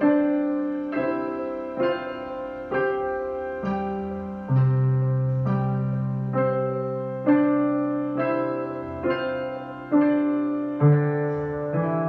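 Piano playing a slow, gentle piece: notes struck about once a second over held low bass notes.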